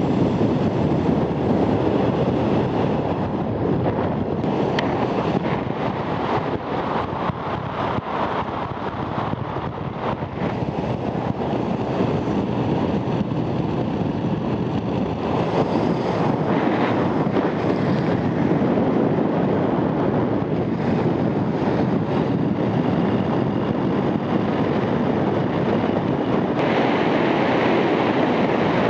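Steady wind rush and road noise from a moving motorcycle, with the Honda Transalp's V-twin engine running underneath at a constant pace.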